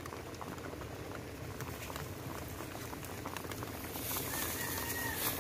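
Light rain falling steadily, a fine haze of many small ticks. From about four seconds in a plastic bag rustles over it.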